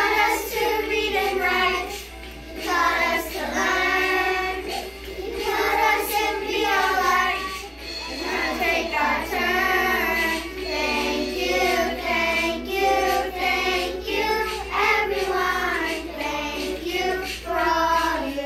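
A group of young children singing a song together in unison, phrase after phrase.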